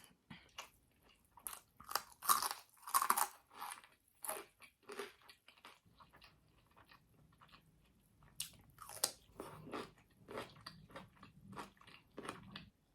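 A person biting and chewing crunchy chips, with irregular sharp crunches. The crunching is busiest in the first few seconds and again near the end, with softer chewing in between.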